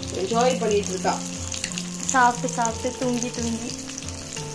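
Fish curry boiling hard in a steel kadai, a steady bubbling sizzle from the thick gravy with oil risen to the top. Background music with held low notes and a sung or played melody runs over it and is the loudest sound at times.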